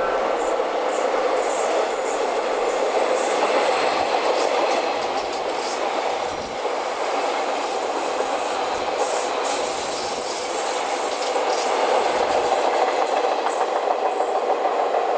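JR East 183 series electric train rolling past a station platform: a steady running rumble with light clicking of wheels over rail joints.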